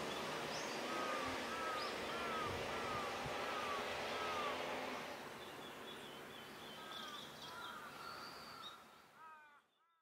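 Outdoor ambience: a bird repeats a run of short arched call notes over a steady background hiss, with fainter higher bird calls later on. The background eases about halfway, and everything fades out near the end.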